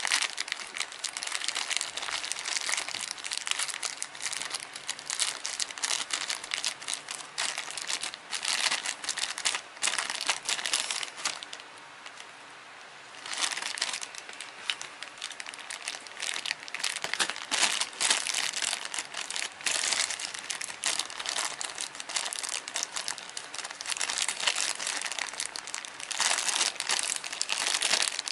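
Thin clear plastic bag crinkling and rustling as hands work it open around a small capsule-toy figure. A short pause comes about halfway through.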